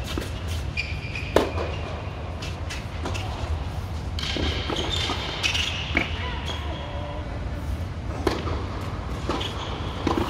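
Tennis ball struck by rackets during a doubles rally: four sharp pops, the first and loudest about a second and a half in, then near the middle, a couple of seconds later, and just before the end. A steady low hum runs underneath.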